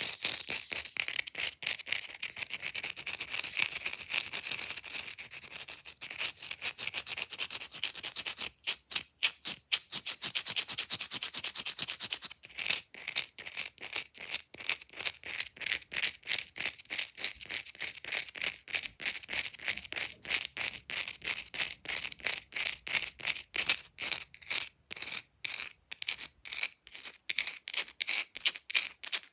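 Long fake nails scratching fast over an object's surface: rapid, steady scraping strokes, several a second, with a bright hiss. About a third of the way in the strokes turn sharper and more separated for a few seconds, then become dense again.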